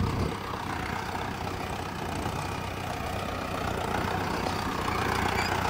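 Mahindra Arjun Novo 605 DI diesel tractor engine running steadily under load while pulling a tillage implement through dry soil.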